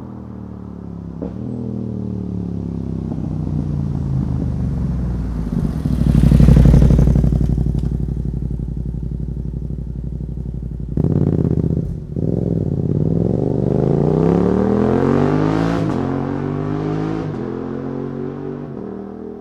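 Yamaha MT-07's parallel-twin engine through a full Akrapovic carbon exhaust with the dB killer removed, passing by under power. Its note swells to a peak about six and a half seconds in and drops in pitch as the bike goes past. Later the revs climb again, with brief cuts near the end typical of quickshifted upshifts, then the sound fades away.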